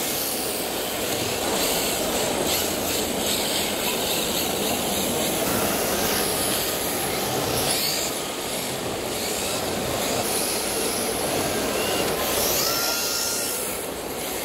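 Radio-controlled drift cars sliding on an indoor track: a steady hiss of tyres skidding, with a few faint rising motor whines near the end.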